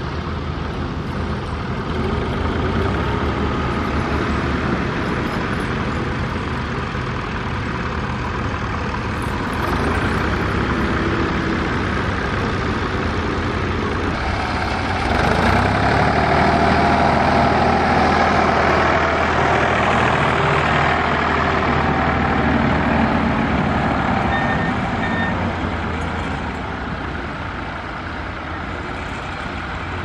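Tractor diesel engines running steadily under load while ploughing, led by a John Deere. About halfway the sound gets louder for several seconds, with a second tractor working close behind, then eases off.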